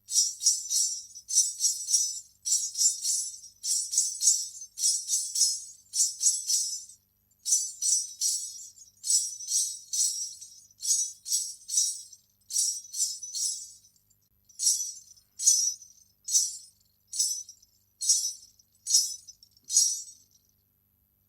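Salangai (ghunghroo) ankle bells jingling in rhythmic shakes, bright metallic clusters with short pauses between groups. In the second half the shakes come apart as single jingles a little under a second apart.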